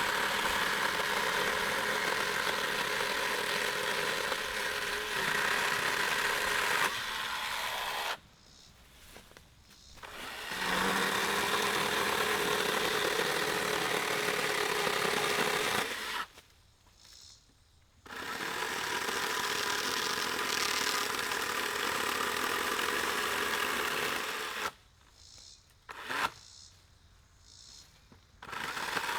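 Battery-powered electric chainsaw running at a steady high speed while cutting wood, in three long runs of several seconds each with short pauses between them where the trigger is released, plus a brief burst near the end.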